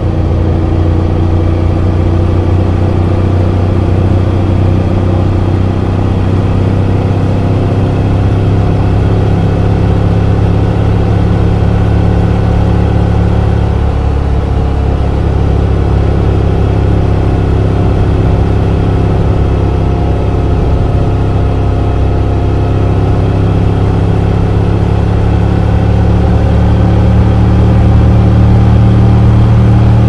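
Motorcycle engine with an Akrapovic header and the stock muffler, running steadily at cruising speed under road and wind rush. Near the end it gets louder and its note climbs a little as the bike accelerates.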